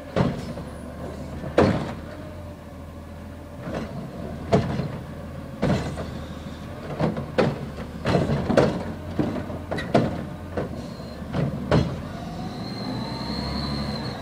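Garbage truck's engine running under a series of loud clanks and bangs as the automated arm on its front carry can grabs and dumps wheeled trash carts. Near the end a steady whine comes in as the truck moves off.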